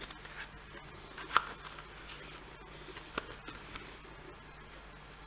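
Plastic blister packaging with a cardboard backing card being handled: faint rustling, with a sharp click about a second and a half in and another about three seconds in.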